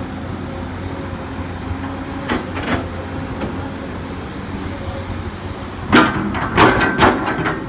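Komatsu PC200 hydraulic excavator's diesel engine running steadily while it works soil, with clanks and knocks: two short ones about two and a half seconds in and a louder cluster near the end.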